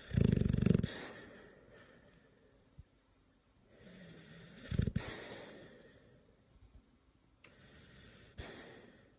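Snoring: three slow sleeping breaths, the first and loudest at the start, the second about four seconds later, and a fainter one near the end.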